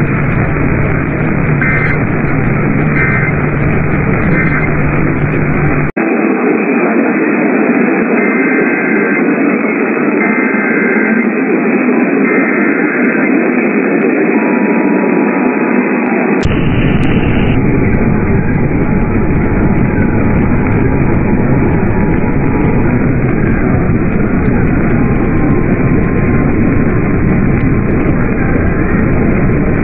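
Loud radio static: a steady hiss from a radio receiver with no clear signal, with faint whistling tones in it. About six seconds in it cuts out for an instant and loses its low rumble, which comes back about ten seconds later.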